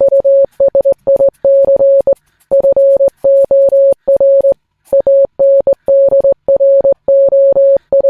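A single steady electronic tone switched on and off in a string of short and long beeps with uneven gaps, like Morse code.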